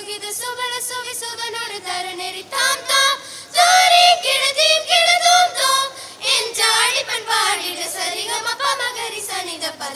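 Group of children singing a Tamil Christmas carol, growing louder for a stretch in the middle.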